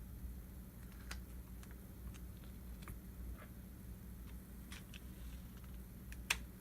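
Faint, scattered small clicks and taps from handling the opened iPhone 5s and its battery and tape, a sharper click near the end, over a steady low electrical hum.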